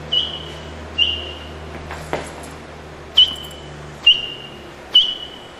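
A person whistling an imitation of the spotted sandpiper's call: five short, high, sharp notes, each dipping slightly in pitch, about a second apart.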